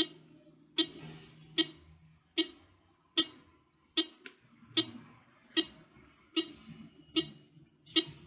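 Seven-transistor alarm circuit sounding through its small speaker as a steady series of short clicking pulses, about five every four seconds.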